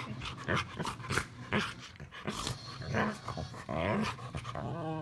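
A pet dog vocalizing in a rapid string of short sounds that bend up and down in pitch.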